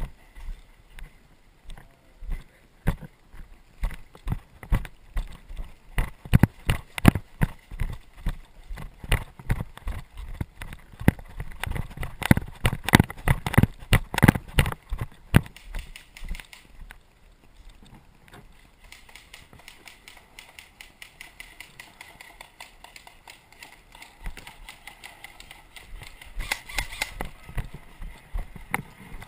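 Footsteps: a long, uneven run of thumps, thickest around twelve to fifteen seconds in, thinning to quieter shuffling after about seventeen seconds.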